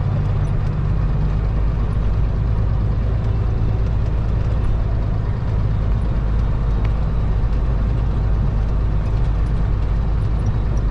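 Heavy truck's diesel engine running steadily under load, a constant low drone heard from inside the cab as the truck climbs a hill.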